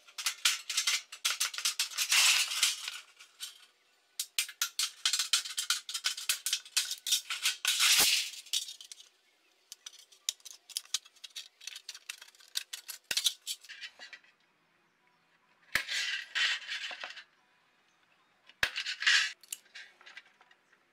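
Aviation tin snips cutting thin galvanized sheet steel: long runs of rapid clicking as the jaws bite along the cut, broken by short pauses, then two brief bursts of shorter cuts near the end.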